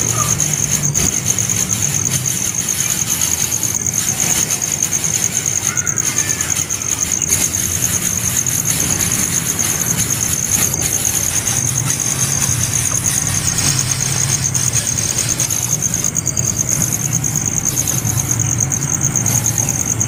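Steady high-pitched insect drone, pulsing slightly, with a low hum coming and going underneath.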